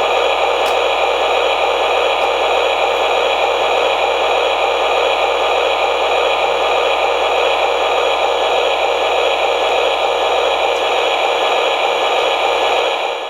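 Steady, loud static-like hiss, even and unchanging, that cuts off at the end.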